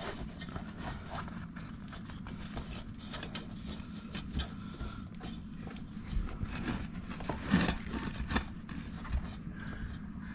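Irregular scrapes, rubs and light knocks of a dirt bike tire and rubber inner tube being worked into the rim by hand, over a low steady hum.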